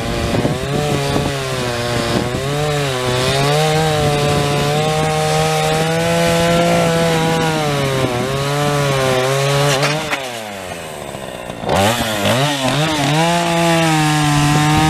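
Chainsaw running at high revs while cutting a heavy log into shorter pieces, its pitch wavering as the chain works through the wood. About ten seconds in it drops for a moment, then revs up again and carries on cutting.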